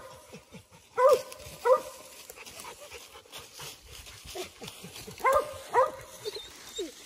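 Mountain cur barking at a squirrel it has treed: loud barks in two pairs, about a second in and again past the five-second mark, with fainter barks between.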